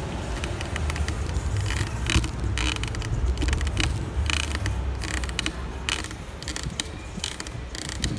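Bicycle rolling over city asphalt: a steady low road-and-wind rumble, with irregular rattling, ratchety clicks from the bike.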